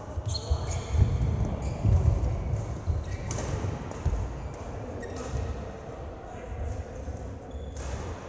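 Ball game in play: irregular thuds and knocks of a ball and players' feet, loudest about one to two seconds in, with a few short high squeaks.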